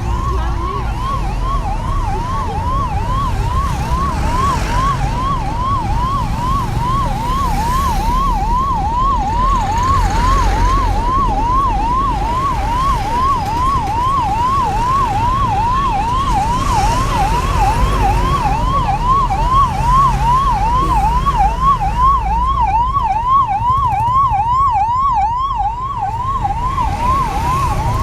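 Electronic emergency-vehicle siren wailing in a fast, repeating yelp, sweeping up and down about two to three times a second without a break, over a low rumble of road traffic.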